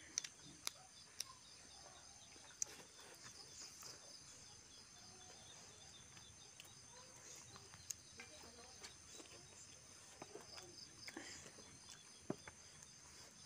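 Quiet, close eating sounds: scattered smacks and clicks of chewing and lips as rice and grilled pork are eaten by hand. Under them runs a faint, steady high chorus of insects.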